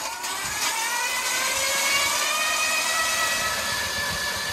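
Power ice auger whining as it drills a hole through lake ice, its pitch rising over the first couple of seconds and then holding steady.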